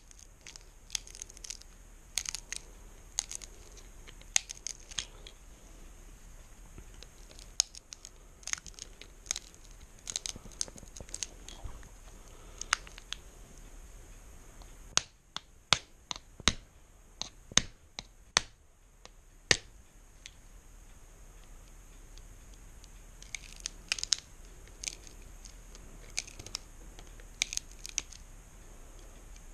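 Needle-nose pliers gripping and bending back the thin sterling silver rim of a weighted Gorham candle holder's base: irregular sharp clicks and crinkling of thin sheet metal, with a run of louder snaps about halfway through.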